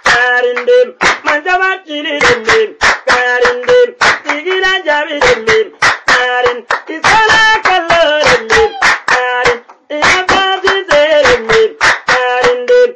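A voice singing held, gliding notes over fast, rhythmic hand clapping, several sharp claps a second, with a short break just before the last few seconds.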